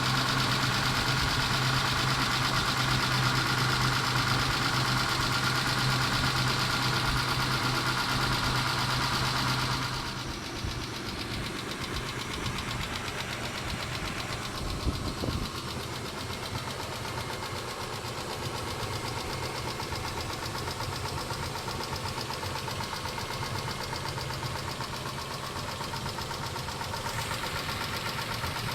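Mitsubishi 6G72 V6 engine idling with a fast, continuous ticking, the tapping the owner suspects comes from the hydraulic lifters. About ten seconds in, a steady hum drops away and the overall sound gets quieter.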